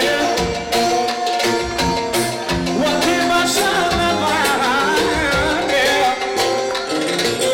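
Live amplified dance music: a man singing into a microphone over a steady drum beat and melody instruments.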